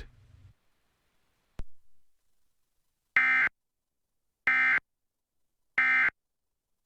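EAS end-of-message data signal: three short, identical bursts of warbling SAME digital tones about a second and a half apart, marking the close of the alert message. A single faint click comes before them.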